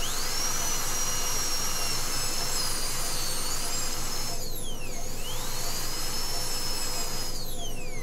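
High-speed dental handpiece with a number 2 round bur whining and hissing as it drills decay out of the occlusal pit of a dog's upper first molar. The whine spins up at once, drops sharply in pitch and recovers about halfway through, then winds down near the end.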